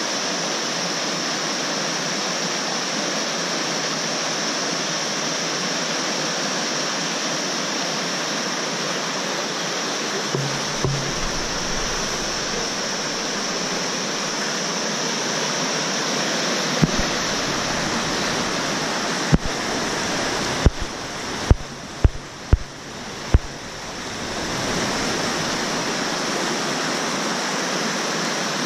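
Fast mountain river rushing over rocks, a steady loud rush of water. In the second half a quick series of sharp knocks or clicks sounds over it.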